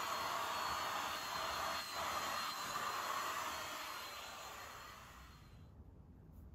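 Handheld vacuum cleaner running steadily with a thin high motor whine, its crevice nozzle drawn over a mattress; the sound dies away about five and a half seconds in.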